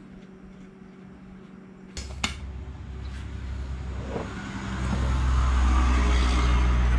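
A socket wrench tightens a steel nut on an outboard motor mount, giving a few sharp metal clicks; the first and loudest comes about two seconds in. From that point a low steady rumble swells in and grows loud, the loudest sound here.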